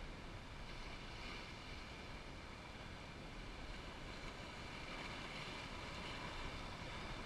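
Ocean surf washing over a lava-rock shoreline, a steady rushing noise, with wind on the microphone.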